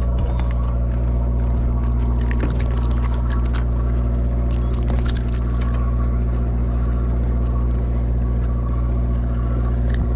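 A sportfishing boat's engine running with a steady low drone, with scattered light clicks over it.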